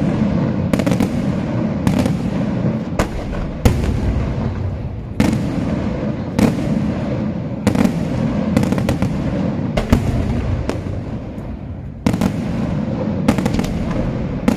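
Daytime aerial fireworks display: shells bursting in quick succession, sharp bangs about once a second over a continuous low rumble of echoing detonations, briefly easing off and then starting hard again near the end.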